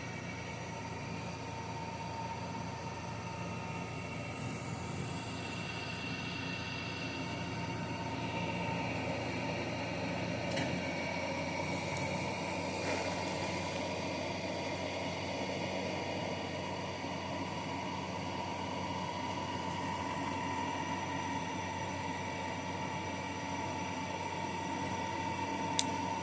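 A small motor running steadily with a constant whine. A sharp click near the end.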